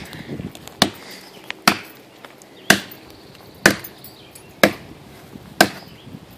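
A Cuma battle cleaver chopping into the trunk of a live, wet pine tree: sharp single blows, about one a second.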